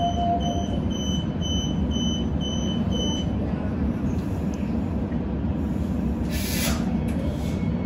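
Inside a suburban electric train: the door-closing warning beeps repeat about twice a second for the first three seconds, then stop, over the train's steady low rumble. About six seconds in comes a short hiss of released air.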